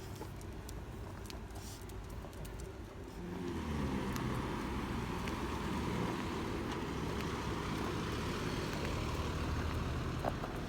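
A car's engine running close by, growing louder about three and a half seconds in and then holding steady.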